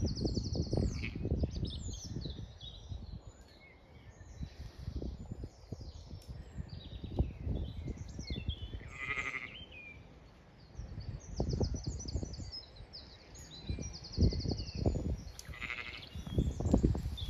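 Zwartbles sheep bleating twice, about halfway through and again near the end, over continual small-bird chirping. Irregular low rumbles come and go between them and are the loudest sound.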